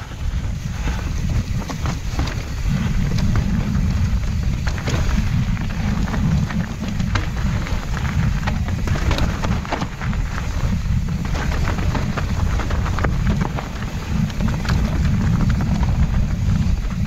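Wind buffeting the microphone as a full-suspension Yeti mountain bike is ridden over a wet dirt trail. Tyres crunch and the bike clatters in many sharp knocks and ticks over the ground. The rumble comes up sharply at the start and stays loud.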